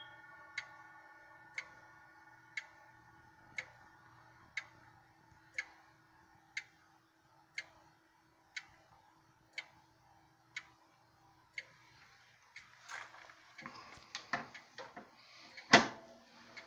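Emperor grandfather clock ticking steadily once a second, while the last ring of its chime rods dies away over the first few seconds. Near the end, rustling handling noise and one sharp, loud knock.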